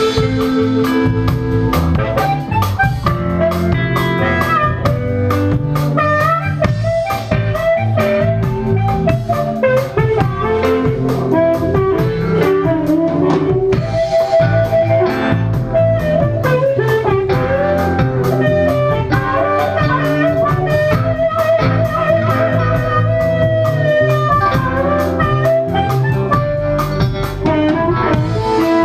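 A live blues band playing: electric guitar, bass and drum kit, with an amplified harmonica cupped to a hand-held microphone carrying the lead in long, bending notes.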